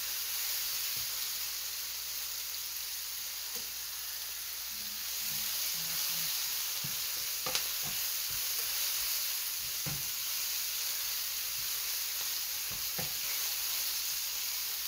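Sliced mushrooms and red onion sizzling in a nonstick frying pan on high heat, cooking off their moisture, while a silicone spatula stirs them, with occasional light clicks and scrapes of the spatula against the pan.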